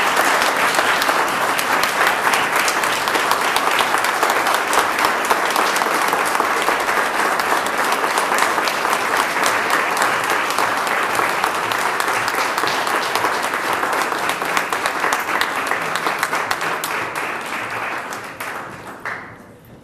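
Audience applauding: a long round of dense clapping that thins out and stops near the end.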